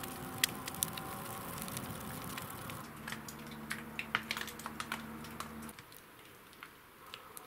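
Wood fire crackling and popping in a homemade barrel tandoor, burning under a new cast-iron kazan that is being heated to burn off its factory coating. Irregular sharp pops run throughout over a faint steady hum that stops about six seconds in.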